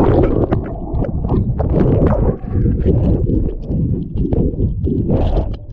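Muffled underwater sound from a wrist-worn camera as a swimmer goes under: water rushing and sloshing, with irregular knocks and splashes.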